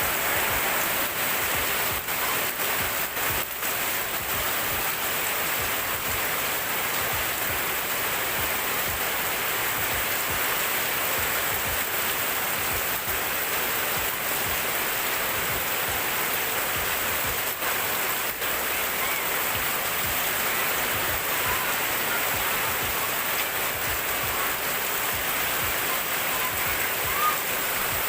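Rain pouring down steadily: a dense, even hiss of falling water that holds at one level throughout.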